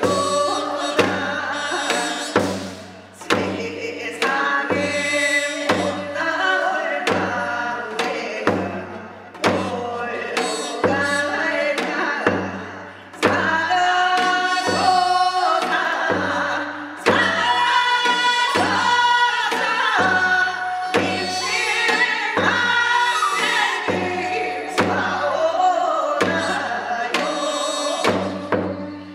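Korean shamanic ritual song: a woman's lead voice sung in a wailing style, with a chorus of women joining in, over a slow, steady drumbeat of a little more than one stroke a second.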